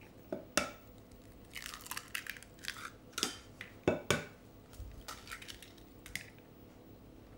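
Hands and a spoon working in a glass mixing bowl as cooked potato pulp is scooped onto flour and eggs are cracked in for gnocchi dough: scattered soft scrapes, taps and crunches, with two sharper knocks about four seconds in.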